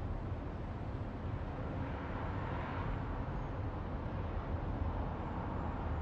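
Highway traffic ambience: a steady low rumble and hiss of traffic, with the noise swelling louder and brighter about halfway through, then settling back.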